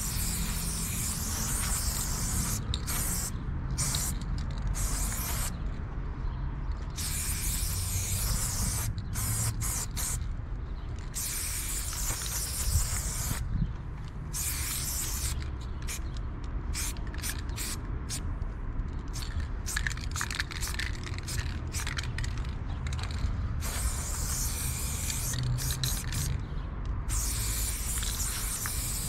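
Aerosol spray-paint can hissing in repeated bursts, from quick spurts to stretches of two or three seconds, stopping and starting as paint is sprayed onto a wall. A steady low rumble runs underneath.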